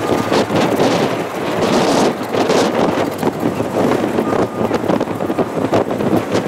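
Boeing 747's four jet engines at takeoff power: a loud, rough, steady roar, with wind buffeting the microphone.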